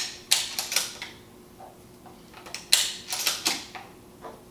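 Inert training shells being pushed one by one past the loading gate into the magazine tube of a Remington 870 pump-action shotgun, each with sharp metallic clicks. There is a click at the start, a run of quick clicks just after, and another run about three seconds in.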